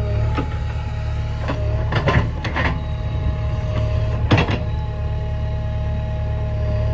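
JCB 3DX backhoe loader's diesel engine running under load, with a steady hydraulic whine as the backhoe arm works. Several knocks and thuds come as the bucket dumps its load into a trailer and then bites into the ground, the loudest about four seconds in.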